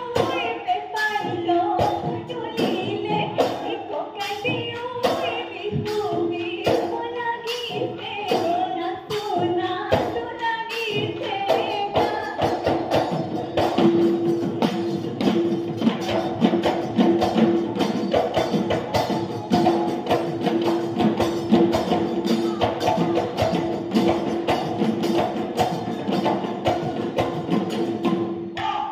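Live Bihu folk music: dhol drums keep a fast, even beat while women sing for the first ten seconds or so. From about twelve seconds in, the singing gives way to a long, steady held note over busier drumming.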